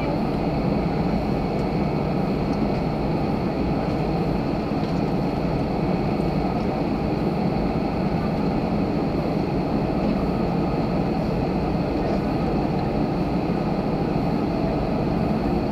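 Airliner's jet engines running steadily at low power before the takeoff roll, heard from inside the cabin as an even hum and rush with a faint high whine.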